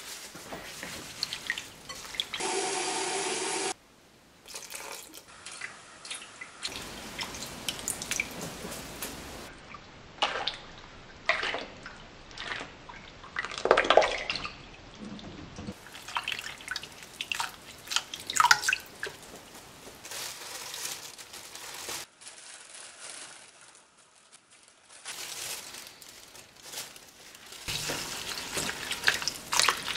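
Tap water running and splashing into a glass bowl of black locust blossoms in a stainless steel sink, with drips and a hand swishing the flowers through the water to rinse them. The water sound stops and starts abruptly several times.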